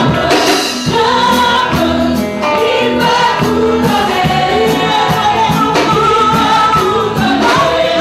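Mixed church choir singing a gospel song into microphones, many voices together, over a steady percussion beat.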